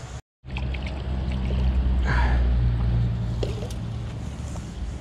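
A hooked trout thrashing and splashing in shallow water at the bank, with scattered short splashes and clicks. Under it runs a steady low rumble, the loudest sound.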